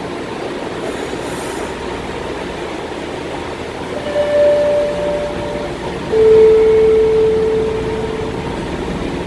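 Metro train standing at an underground platform with its doors open, its equipment giving a steady hum. About four seconds in a steady tone sounds briefly, then a lower, louder steady tone holds for about two seconds.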